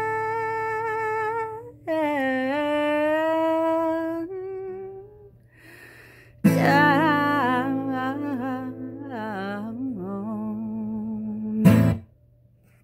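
A woman humming a wordless melody in long, held notes with vibrato over a strummed acoustic guitar, at the close of a song. A last strong strum near the end, then everything stops abruptly.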